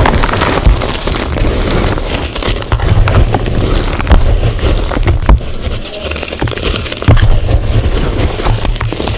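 Blocks of gym chalk crushed and crumbled close to the microphone: a dense run of crunches and sharp cracks over a low rumble.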